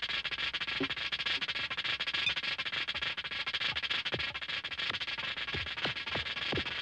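Electronic music score: a dense steady hiss with short falling pitch sweeps, which start about two-thirds of the way in and come quicker and quicker near the end.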